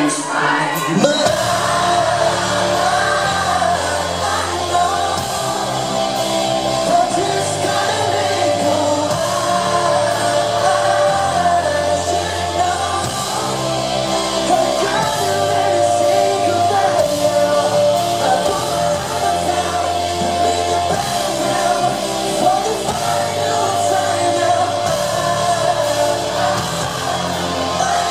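Live pop band playing, with a male lead vocal sung over drums, bass and keyboards. It is a loud concert mix picked up from the audience in a large hall.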